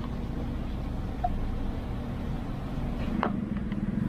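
Steady low rumble of a vehicle engine running, growing slightly louder toward the end.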